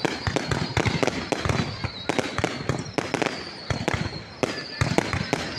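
Fireworks going off in a rapid, irregular run of sharp bangs and crackles, several a second, with brief gaps between volleys.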